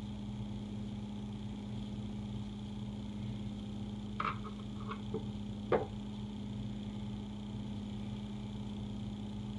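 A few light clicks and taps, about four to six seconds in, as a small screwdriver pries a rubber seat seal and spring out of a faucet valve seat hole. A steady low hum runs underneath.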